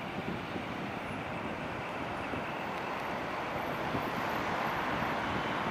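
Steady noise of road traffic passing beyond the trees, slowly growing louder toward the end.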